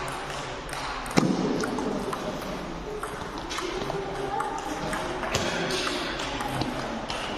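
Table tennis ball clicking off rackets and the table in an irregular rally. The strongest hit comes about a second in.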